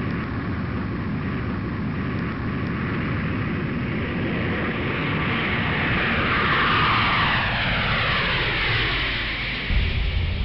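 Jet airliner engines running on the runway: a loud steady rush, with a whine that falls in pitch late on. Music with low steady tones comes in near the end.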